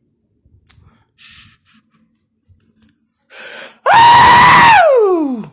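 A quick sharp breath in, then a man's loud scream straight into the phone, held at one high pitch for about a second before sliding down in pitch as it dies away. It is a deliberate all-out scream that reads 122.7 on a phone decibel meter.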